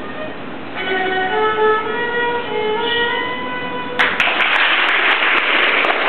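A violin played solo, a melody of separate held notes. About four seconds in, the violin is covered by a sudden, loud rush of noise.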